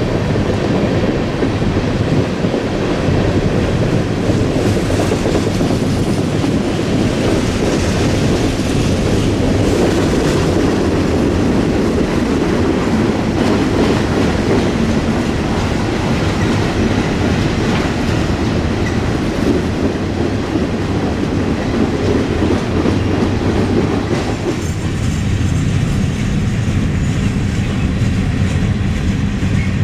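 Norfolk Southern manifest/autorack freight train rolling past: a steady rumble of wagons with wheels clattering over the rail joints. The higher rushing part of the sound thins out near the end.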